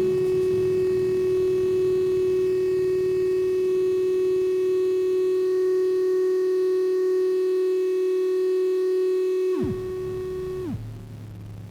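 Soma Laboratories Lyra-8 analog drone synthesizer holding one steady drone tone rich in overtones. Near the end the pitch dives steeply down, twice a second apart, and the drone falls away to a quieter low hum.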